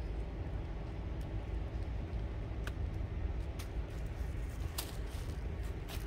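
Steady low rumble of distant highway traffic, with a few faint clicks.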